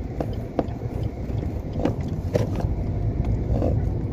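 Steady low rumble of a car driving on the road, heard from inside the cabin, with a few light, irregular clicks.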